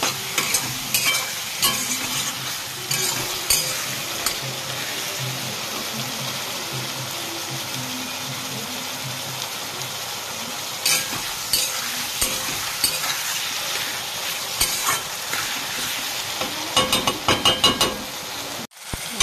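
Eggplant and potato pieces sizzling in hot spiced oil in a kadai while a flat metal spatula stirs them, scraping and clicking against the pan: the vegetables being fried down in the masala. The clicks come in clusters, a few at the start, more in the middle, and a quick run near the end.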